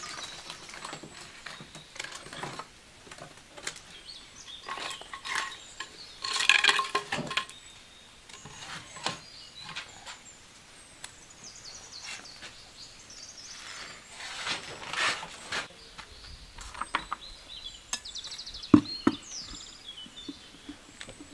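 Scraping and knocking of firewood being pushed into a wood fire between the hearth stones, with occasional sharp clicks and clinks. The two loudest scrapes come about six and fifteen seconds in.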